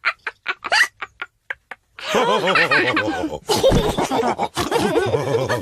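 Cartoon pig characters laughing and snorting: short, separate giggles and snorts for the first two seconds, then several voices laughing together from about two seconds in.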